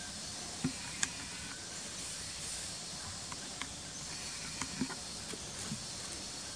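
Steady outdoor hiss with scattered faint clicks and a few soft low knocks.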